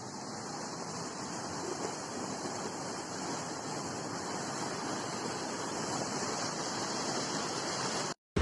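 Flash-flood runoff rushing down a rocky wadi channel: a steady rush of water that swells slightly, then cuts off abruptly near the end.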